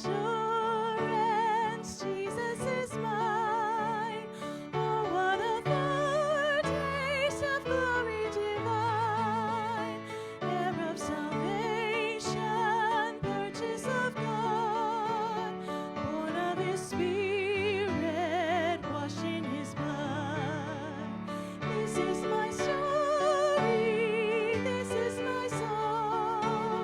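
Slow song sung by one voice with wide vibrato, over a steady held-chord accompaniment.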